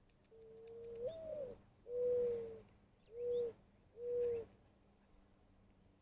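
Mourning dove singing its coo song: a rising first note, then three steady low coos, the first a little longer than the last two.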